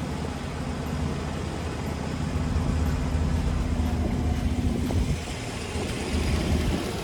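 Portable sawmill's gas engine running steadily with a low hum. The hum's higher tone drops out about five seconds in.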